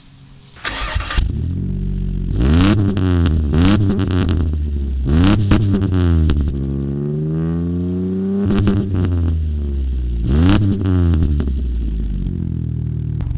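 An engine starting up about a second in and revving up and down several times, with clattering knocks at the peaks of the revs.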